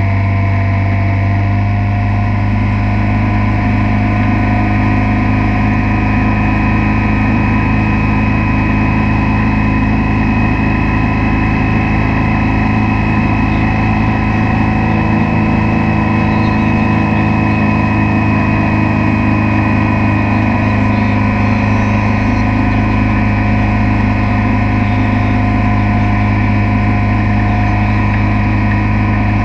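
Motorboat engine running at towing speed, a steady drone that rises slightly in pitch over the first two seconds and then holds, with the wake's water rushing behind the boat.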